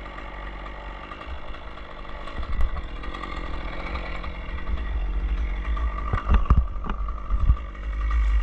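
An engine running steadily, with a few sharp knocks about six to seven and a half seconds in.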